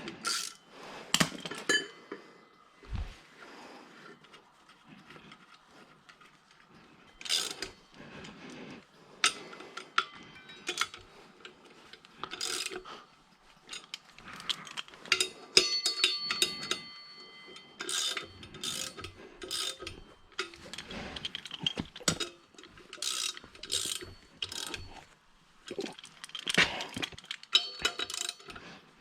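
Metal parts and hand tools being handled on a workbench: irregular clanks, clicks and clinks of steel, with a metal part ringing briefly about halfway through.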